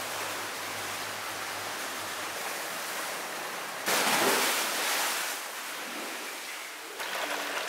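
Swimming-pool water rushing and bubbling around a swimmer, with a louder surge of splashing and bubbles about four seconds in.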